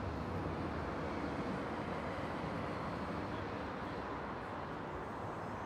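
Steady distant rumble of vehicles in an urban area, an even hum with no distinct events.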